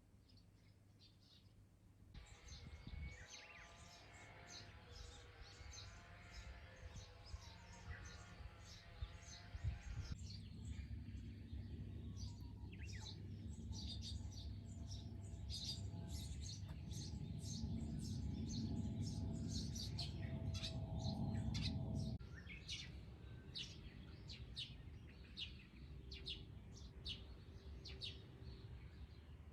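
Small birds chirping and twittering over and over, with many short high calls, over a steady low background rumble that changes abruptly a few times.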